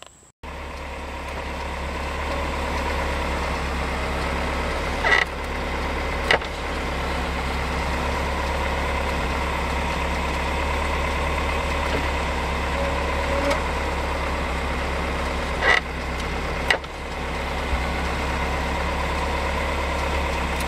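Pontiac Fiero's engine idling steadily, with two pairs of sharp clicks, each pair about a second apart.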